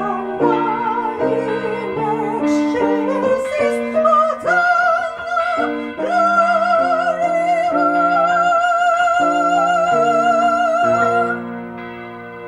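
Classical-style singing with wide vibrato over piano accompaniment, building to a long held high note that stops about eleven seconds in, leaving the accompanying chord to fade.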